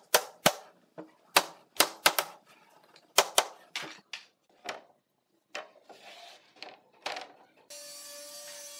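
Hammer blows on a wooden wardrobe panel frame: a quick, irregular run of sharp knocks that thins out after about four seconds. Near the end the sound cuts to a steady hum with held tones.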